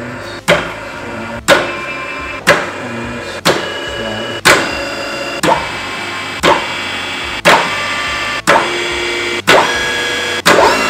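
Background music with a steady beat, a struck note or chord about once a second, the pitch changing from beat to beat.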